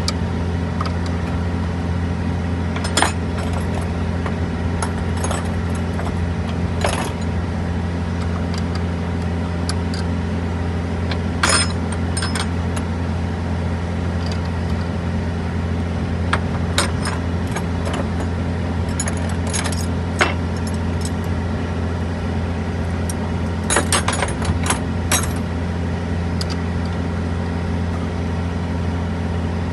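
Semi truck's diesel engine idling steadily, with scattered metallic clinks and taps of tools and parts, some in quick clusters.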